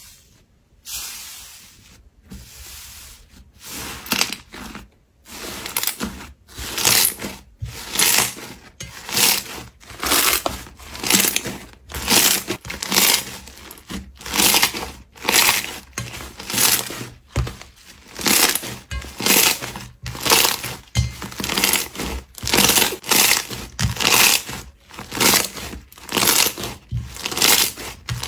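Slime being worked or mixed, a crackly squishing sound repeated in a steady rhythm about once a second.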